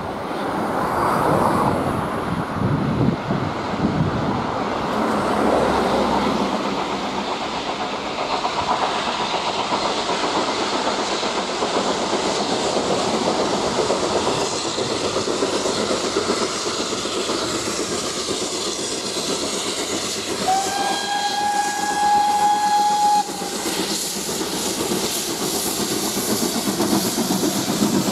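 Steam-hauled passenger train approaching along the line with a steady rushing noise. About three-quarters of the way in, the locomotive gives one long steam whistle blast of a little under three seconds, a single steady note.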